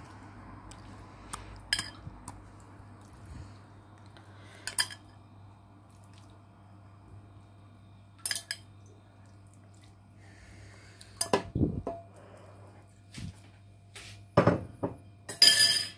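Metal utensils clinking against a metal cooking pot and containers: sharp single clinks every few seconds, coming closer together near the end, over a faint steady low hum.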